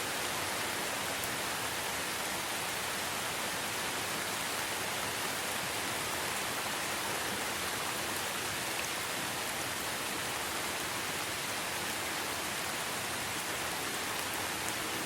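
Steady rainfall: an even hiss of rain with a few faint drop ticks, no change in strength.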